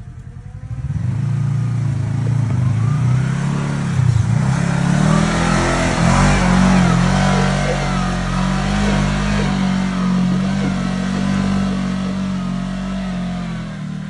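Side-by-side UTV engine running hard under load as it crawls up a steep slickrock ledge. The engine comes up about a second in and holds, its pitch rising and falling with the throttle.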